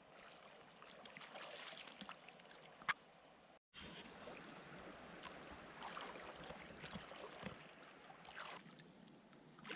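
Faint sloshing and splashing of a person wading through shallow river water, with a single sharp click about three seconds in.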